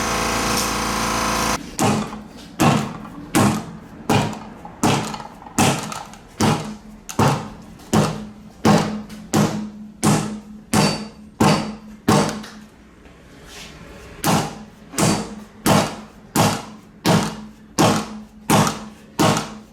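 A rubber mallet striking the sidewall of a 235/40R19 low-profile tire on a Harbor Freight tire changer, to force a bead that won't seat under air pressure. About twenty dull blows come at a steady pace of a little more than one a second, with a short pause partway through. At the start a steady air-compressor hum stops about one and a half seconds in.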